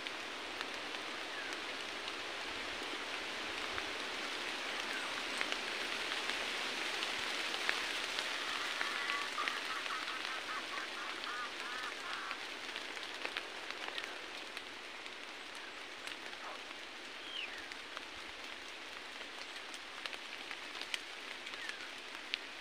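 Steady hiss of rain falling on forest foliage, with scattered small drip ticks. A few faint short bird calls come through: a quick run of notes about halfway through and a brief rising chirp later.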